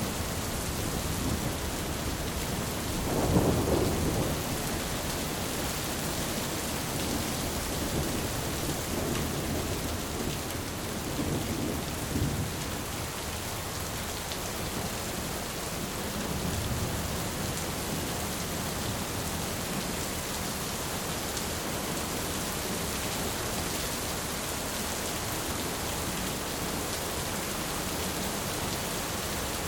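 Heavy rain pouring steadily, with low rolls of thunder. The loudest rumble comes about three seconds in and a fainter one a few seconds before halfway.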